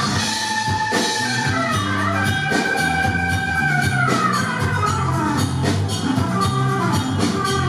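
Anatolian rock band playing live: an instrumental passage with drums and bass under a lead line of long held notes that slide downward about four seconds in.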